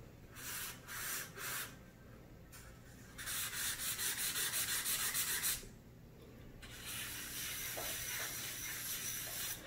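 Pencil scratching across drawing paper as broad, dark lines are shaded with a long-sharpened pencil. First come three short strokes, then a couple of seconds of rapid back-and-forth hatching, then a steadier scratching near the end.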